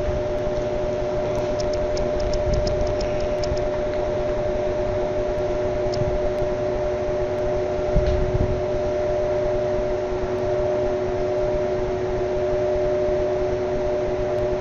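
Steady mechanical hum holding two constant tones over an even hiss, like a fan or air-conditioning unit, with a few faint rapid ticks in the first few seconds and a soft low bump about eight seconds in.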